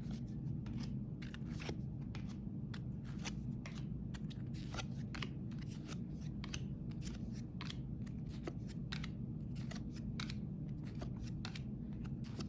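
Trading cards being handled and flipped one after another: a quick, irregular run of short scrapes and clicks of card sliding against card, over a steady low hum.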